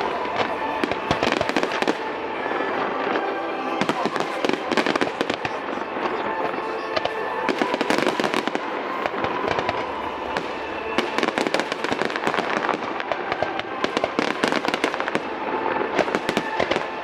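Fireworks display: a dense, continuous run of bangs and crackles, with the show's music faint underneath.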